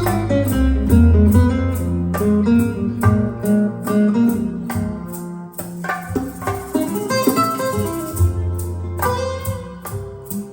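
Recorded jazz playing over Snell Type A/III vintage loudspeakers: an instrumental passage of plucked guitar notes over a walking bass line, with no vocal.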